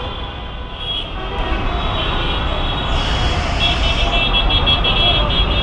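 Heavy city street traffic of buses and motorcycles: a steady engine rumble with horns honking, more in the second half, and a brief hiss about three seconds in.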